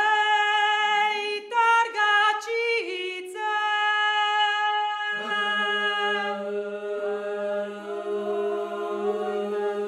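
Women's klapa choir singing a cappella in close Dalmatian polyphony: one high voice opens alone, holding and moving between notes, then lower voices join about five seconds in and the group holds a sustained chord.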